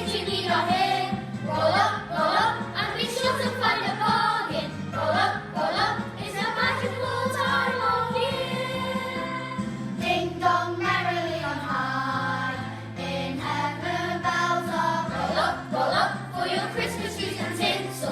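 A children's school choir singing a Christmas carol together over an instrumental accompaniment with a stepping bass line. They hold one long note about halfway through.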